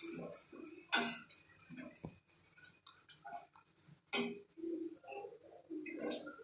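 A spatula scraping and tapping against a flat frying pan while leaf fritters are pressed and turned, giving a few sharp clinks spread out over several seconds.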